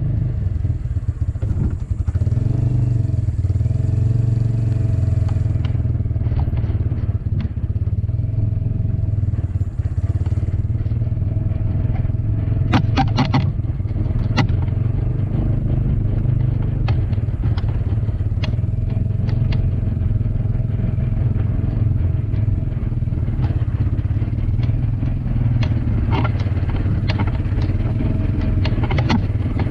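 Truck engine running steadily, with occasional metallic clanks.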